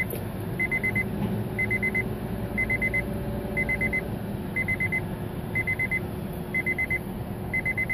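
An electronic beeper sounding a quick burst of four high beeps about once a second, over a steady low engine rumble.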